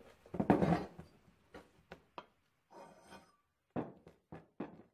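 Cast-iron engine parts handled on a workbench: a loud clunk about half a second in, a few light knocks, a short scrape, then four quick knocks near the end.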